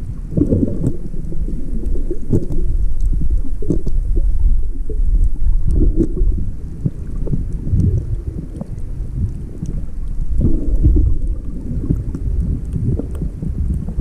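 Muffled underwater rumble of water moving around a submerged camera, swelling and easing in irregular surges, with faint scattered clicks.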